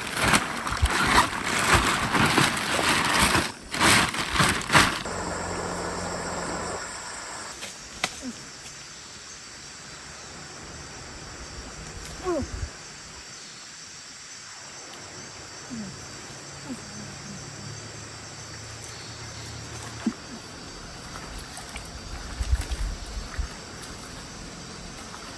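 Water splashing and sloshing loudly for about the first five seconds, then a fast-flowing stream rushing steadily.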